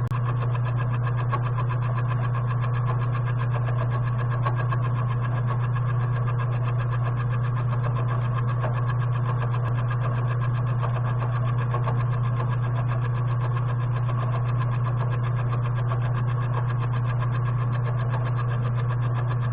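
Benchtop machine tool motor running steadily with a strong low hum while cutting a block of 4140 steel.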